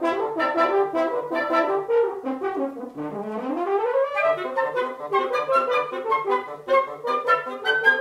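Woodwind quintet of flute, oboe, clarinet, French horn and bassoon playing a brisk, rhythmic passage of short detached notes over a steady low pulse. About three seconds in, a fast run sweeps upward.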